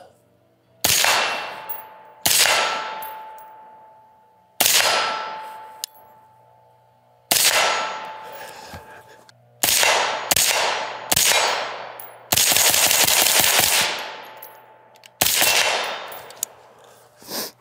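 Suppressed AR-15-pattern rifle firing 55-grain 5.56 ammunition, about nine single shots at an uneven, slow cadence, two or three of them closer together in the middle. Each shot is a sharp report with a long echoing decay, and a faint ringing tone lingers after several of them.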